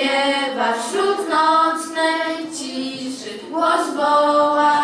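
A group of girls singing a Polish Christmas carol together, holding long notes between phrases.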